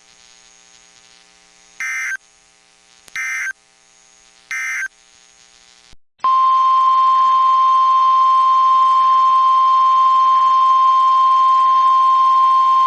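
NOAA Weather Radio alert signalling: three short screeching bursts of SAME digital header data about a second apart. From about six seconds in comes the steady, loud 1050 Hz warning alarm tone, which marks the start of a new warning broadcast.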